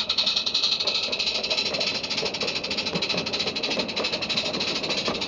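Miniature live-steam locomotive passing close by: rapid, even exhaust chuffs over a steady hiss of steam, with the coaches rattling along the track behind it.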